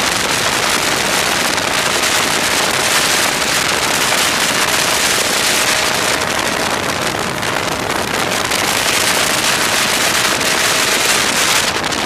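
125cc two-stroke TaG racing kart engine running at race speed, picked up by a camera mounted on the kart. It comes through as a loud, harsh, dense crackle with barely any clear engine note.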